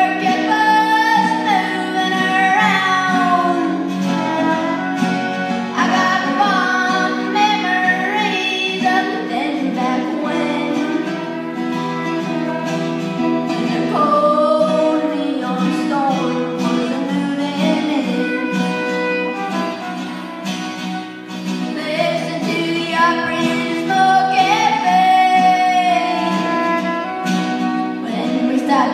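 Live traditional country song: a singer with fiddle and acoustic guitars playing along, heard from the audience in a theater hall.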